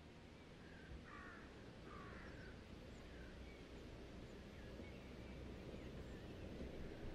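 Mercedes-Benz X350d pickup's V6 diesel engine approaching, a faint low rumble growing steadily louder. A few bird calls come between about one and three seconds in.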